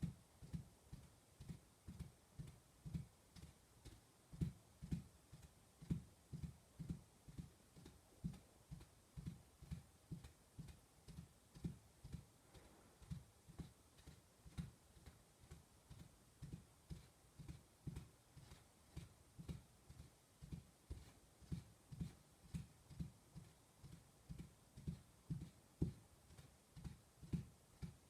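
Horse galloping through choppy mud: dull, low hoof thuds in a steady rhythm of about two to three a second.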